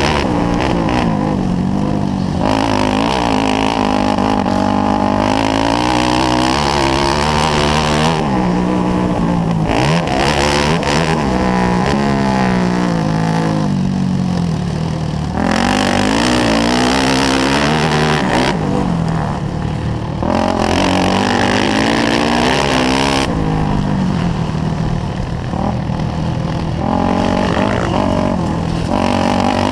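Onboard sound of a Yamaha YZ400F dirt bike's 400 cc four-stroke single-cylinder engine being ridden hard on a grass track. The engine note repeatedly climbs under throttle and drops back as the rider shifts and backs off.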